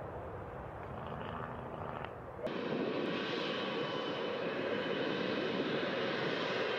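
Jet airliner engines running: a dull steady rush that changes abruptly about two and a half seconds in to a louder steady rush with a thin high whine.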